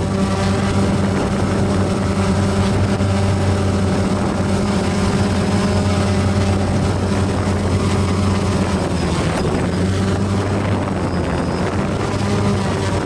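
Propellers and motors of a small remote-controlled aircraft spinning, a steady, even whirring hum that holds one pitch throughout.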